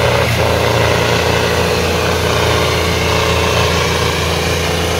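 Tractor diesel engines, a John Deere and another tractor, running steadily under heavy load as they pull against each other in a tug-of-war.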